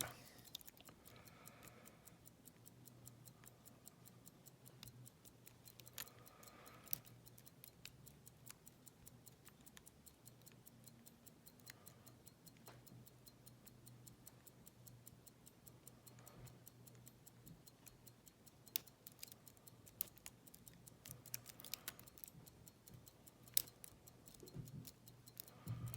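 Faint, irregular ticks and clicks of a lock pick working the pin stack of a Schlage padlock under light tension, with a few sharper clicks in the last third, over a faint low hum.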